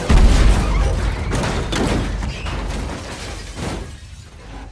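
A sudden loud crash-and-boom sound effect with breaking and clattering, fading away over about four seconds, marking the RC car's crash in which its old plastic broke.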